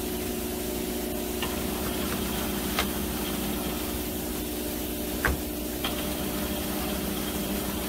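Veneer stitching machine running with a steady motor hum while veneer sheets feed under its stitching head. A few sharp clicks break in, the loudest about five seconds in.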